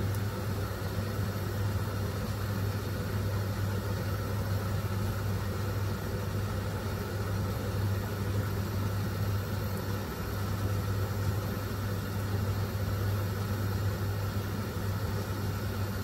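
Steady low motor hum with an even rushing noise over it.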